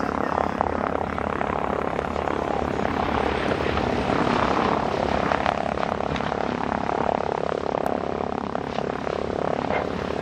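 B-25D Mitchell's two Wright R-2600 Twin Cyclone radial engines and propellers running steadily as the bomber comes in over the runway and rolls out after touchdown.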